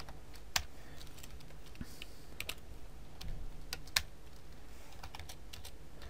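Computer keyboard typing: scattered, irregular key clicks, with a louder keystroke about half a second in and another near four seconds in.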